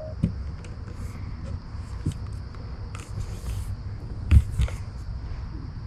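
Scattered soft knocks and clicks of a camper window being handled and pressed into its wall opening, with one louder knock a little over four seconds in, over a faint steady high hum.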